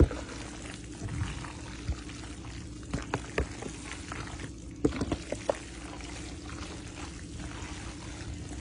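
A utensil mixing a big tub of creamy pasta salad: wet stirring sounds with scattered sharp clicks as it knocks the plastic container, over a steady low hum.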